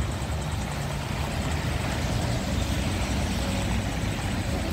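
Steady low rumble of street traffic, with a vehicle engine running.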